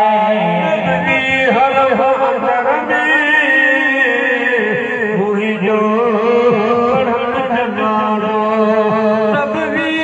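Music with melodic singing or chanting, the voice line bending and sliding over a steady held low note.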